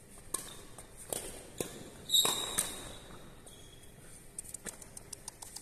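Badminton rally: several sharp racket strikes on the shuttlecock, then a shoe squealing on the court floor about two seconds in. A run of lighter clicks and footsteps follows near the end.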